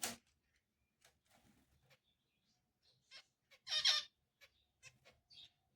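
Finches moving about in their nest: scattered short ticks, scratches and faint brief chirps, with a louder rustle lasting about half a second a little past halfway.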